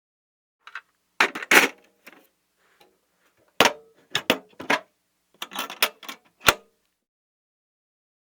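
A toolbox being handled: irregular clicks and clatters in a few clusters, ending with one sharp knock.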